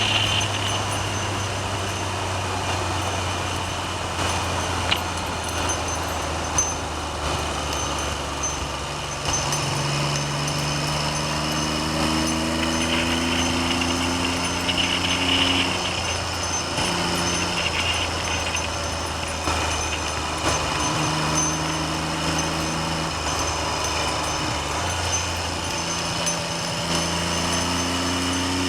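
Triumph Trident's three-cylinder engine under way on the road, its note climbing slowly under acceleration and dropping back at gear changes several times, over steady wind noise on the microphone.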